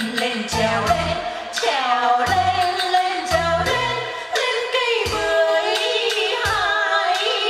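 Song with a singing voice holding long, wavering notes over short repeated bass notes, the bass dropping out about halfway through.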